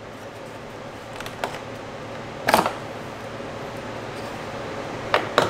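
Lexus IS 200t plastic engine cover being pulled straight up off its mounts, which let go with sharp pops: one about halfway through and two close together near the end. A steady background hum runs underneath.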